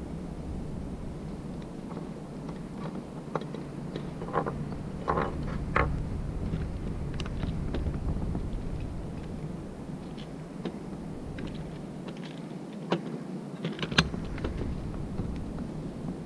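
Scattered light clicks and small rattles of plastic fishing tackle being handled and picked from a plastic tackle box, a cluster of them a few seconds in and two sharper clicks near the end, over a steady low background rumble.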